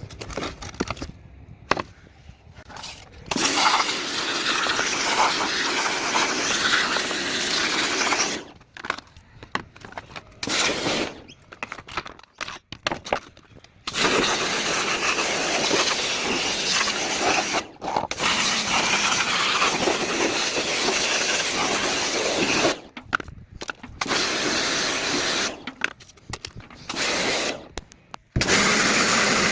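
Harsh, even rushing noise in several bursts of a few seconds each that start and stop abruptly, from cleaning the parts of a washing machine's tub.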